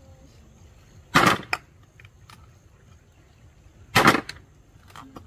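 Two loud, sharp knocks about three seconds apart, the first followed quickly by a lighter one.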